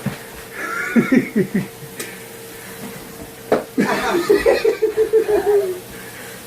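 A man laughing in two bursts, one about half a second in and a longer run of rapid, repeated chuckles in the second half, with a sharp knock just before the second burst.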